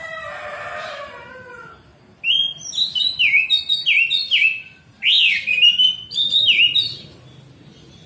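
A rooster crows at the start, its long call fading out within about two seconds. Then an orange-headed thrush sings loudly in rapid phrases of repeated sharp, down-slurred notes, with a brief break just before the fifth second.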